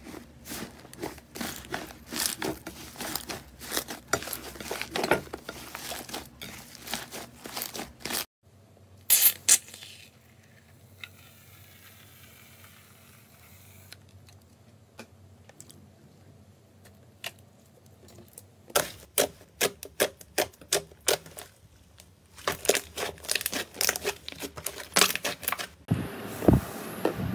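Hands squeezing and kneading soft, airy slime, giving dense runs of sticky crackling and popping clicks as trapped air pockets burst. There is a quieter stretch about a third of the way in.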